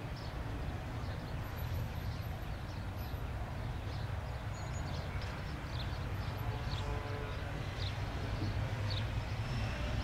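Steady low drone of a distant Beech C90A King Air's twin turboprop engines running as the aircraft taxis, with faint short high chirps scattered through it.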